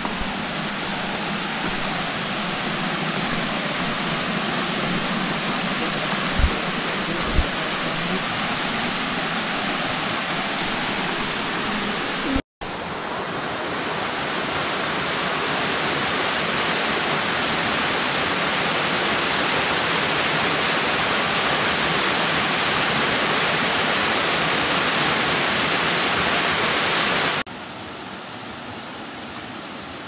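Waterfall of about 40 m plunging over rock into its pool: a steady, even rushing of water. It cuts out for an instant about twelve seconds in and comes back louder, then drops noticeably quieter near the end; two brief low thumps sound about six and seven seconds in.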